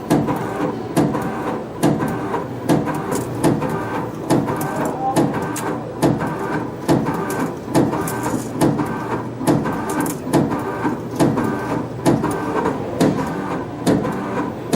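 CNC compression spring coiling machine running in a steady production cycle: a whirring wire feed followed by a sharp click, repeating a little more than once a second.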